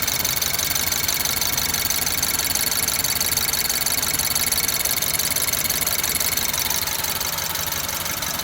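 BMW E87's N43B20A four-cylinder petrol engine idling steadily.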